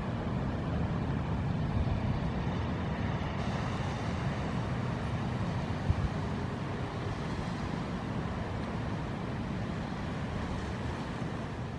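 Steady rush of ocean surf breaking on shore rocks, mixed with wind on the microphone, with one brief thump about six seconds in.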